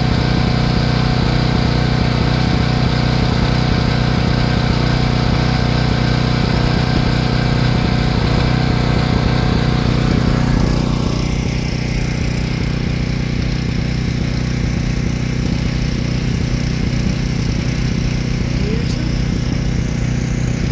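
A car's engine running steadily, with road and tyre noise, heard from inside the moving car. About halfway through, the higher hiss drops away and the engine hum carries on.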